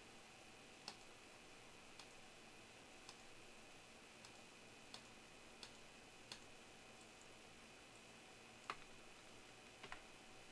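Faint, sharp computer mouse clicks, about one a second at uneven spacing, the loudest a little past eight seconds in, over near-silent room tone: a web-page button being clicked again and again.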